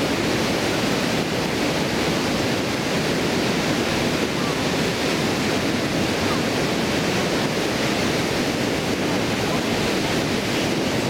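River water pouring over a stone weir and churning below it: a steady, even rush.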